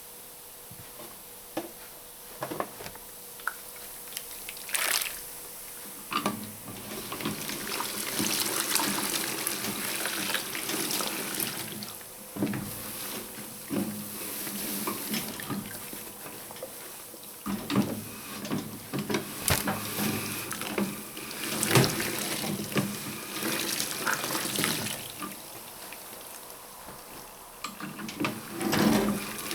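Water splashing and running off wet towels as they are fed through the wringer of a Hoover 0321 wringer washing machine, in uneven spells of sloshing with scattered clicks.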